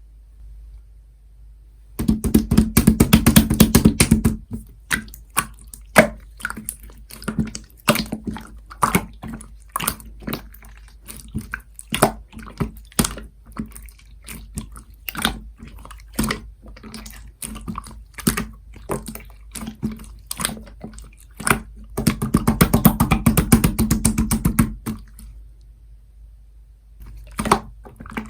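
Clear slime being handled, giving off sticky popping clicks as it is pressed and pulled apart. There are two spells of fast crackling, one shortly after the start and one about three-quarters of the way through.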